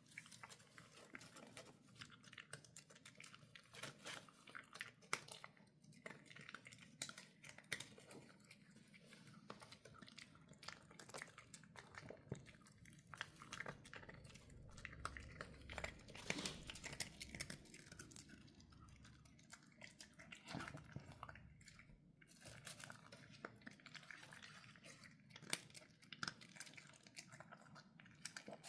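A pet chewing dry kibble: many quick, irregular crunches as the pieces break between its teeth.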